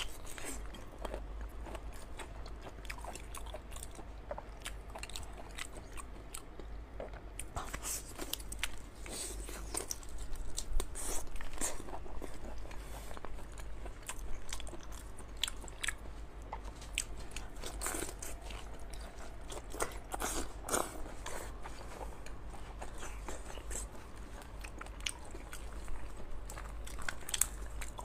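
A person chewing and biting into raw marinated black tiger prawns, with irregular crisp crunches and clicks of shell.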